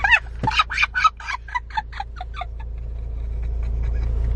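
Laughter: a run of short pitched bursts, about five a second, that fades out over two and a half seconds. Then only the low steady rumble of the car's cabin is left, growing louder near the end.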